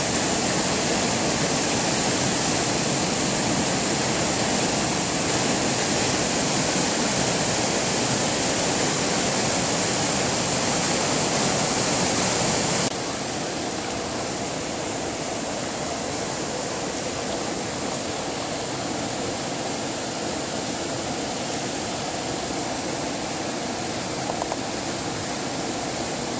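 River water pouring over a low dam spillway into churning white-water rapids: a steady, loud rushing of falling water. About halfway through it drops a little in level and loses some of its hiss.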